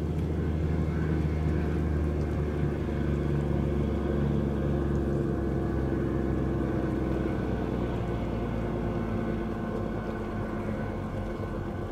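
Fast passenger ferry's engines running at speed: a steady low drone with several engine tones, easing off slightly over the last few seconds.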